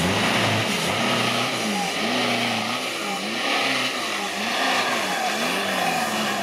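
Off-road trial 4x4 special's engine revving up and down in quick blips, about twice a second, under load as the truck climbs a steep dirt bank.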